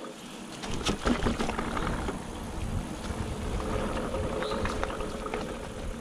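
Electric mountain bike rolling along a dirt forest trail: tyre noise over the ground with scattered knocks and rattles from the bike.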